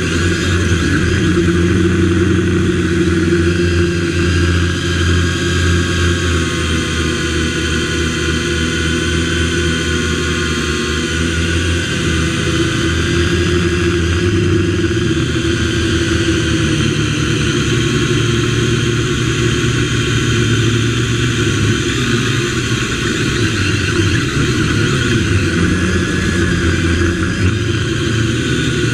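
MJX X101 quadcopter's motors and propellers buzzing steadily in flight, heard from a camera mounted on the drone itself; the pitch wavers a little as it manoeuvres.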